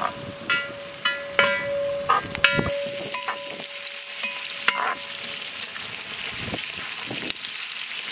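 Sliced red onions sizzling in hot oil in a large pan, stirred with a slotted spoon; a steady frying hiss that sets in about two and a half seconds in. Before that come a few ringing metallic clinks of steel bowls and utensils.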